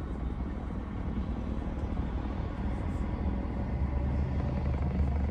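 Car engine idling, heard from inside the cabin as a steady low rumble that grows a little louder about four seconds in.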